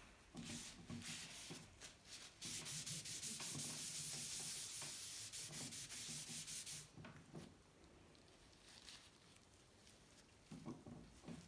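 Rapid rubbing strokes, dense and steady for about four seconds, starting about two seconds in. Lighter, scattered scraping comes before them, and a few faint handling noises follow.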